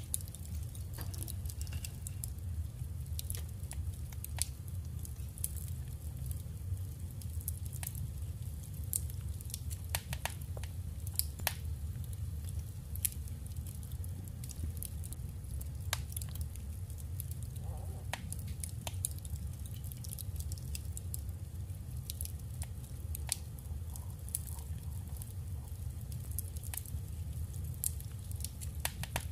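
Paper and craft materials being handled: irregular small clicks, taps and crinkles over a steady low hum.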